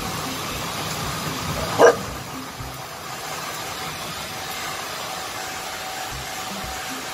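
Handheld hair dryer blowing steadily, with a dog barking once, short and loud, about two seconds in.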